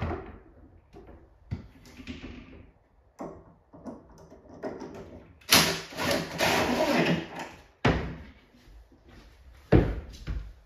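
Cordless drill running for about two seconds, driving a screw into a cabinet door hinge. Around it are several sharp knocks and thumps of the wooden door and hinge being handled, the loudest two near the end.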